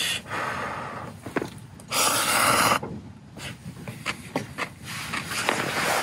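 A person eating hot ramen noodles: a loud breathy slurp about two seconds in, with a run of short clicks and smacks of eating in the second half.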